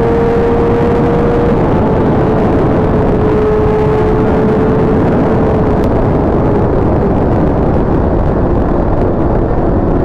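Inline-four sport bike engine running at a steady high cruising note, its pitch stepping down slightly twice, over heavy wind rush on the microphone.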